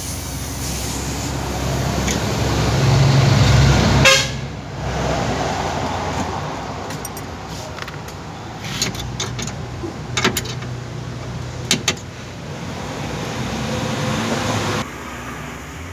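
A loud low rumble, vehicle-like, builds over the first few seconds and cuts off sharply with a click. Then come a few light, sharp metal clicks from a screwdriver working the screws out of the power-window mechanism inside the door.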